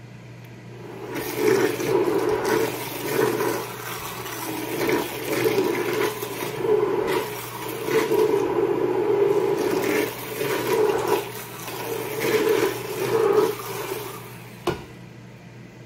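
Vitamix immersion blender running in a pot of thick creamy tomato soup, its blade churning the liquid, the sound swelling and dipping as the blender is worked through the pot. It starts about a second in and stops near the end, followed by a short click.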